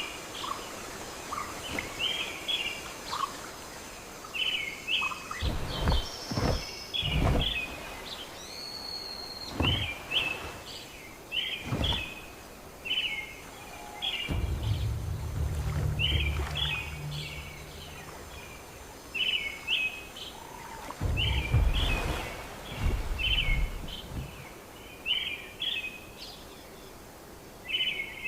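Rainforest ambience: a bird repeats short chirping phrases about once a second throughout, with a few dull thuds in the first half and a low rumble twice in the second half.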